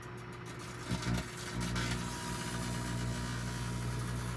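Microwave oven running with a steady electrical hum and buzz that steps up in level about a second and a half in, with a burning Bic lighter inside, a load that leaves the magnetron sounding strained.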